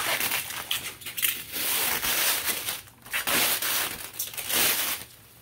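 Self-clinging bubble wrap being pulled apart and unwrapped from a gift, crinkling and crackling in several loud bursts with short pauses between them.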